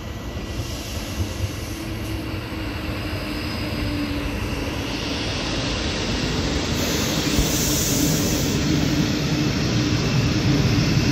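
Electric multiple unit drawing into the platform, its rumble and wheel noise growing steadily louder as the carriages roll past, with a brief high hiss about seven seconds in.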